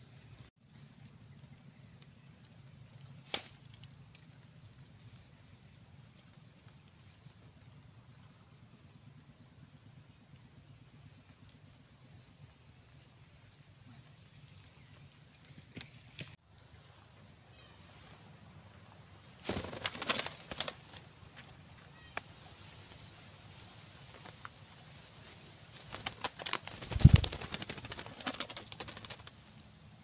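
Parrots flapping their wings in two flurries, one a little past the middle and a louder one near the end.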